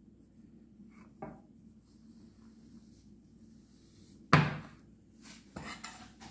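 A sharp knock about four seconds in, the glass baking dish being handled against the granite countertop, followed by a few softer knocks. Before it, a faint steady hum and a couple of small clicks.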